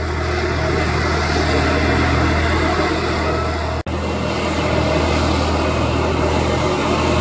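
Steady jet engine noise from an Airbus A330 airliner flying overhead on approach, a dense rushing sound over a low hum. There is a brief break in the sound about four seconds in.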